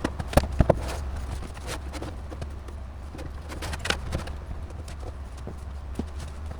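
Scattered clicks and light knocks of computer hardware being handled, several close together in the first second, over a steady low hum.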